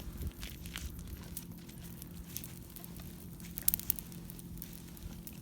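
Wood bonfire crackling with scattered sharp pops, a quick cluster of louder pops about three and a half seconds in, as freshly added fuel catches.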